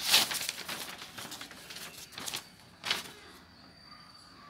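A sheet of paper being handled and laid flat, rustling: a loud rustle right at the start lasting about a second and a half, then two short rustles around two and three seconds in.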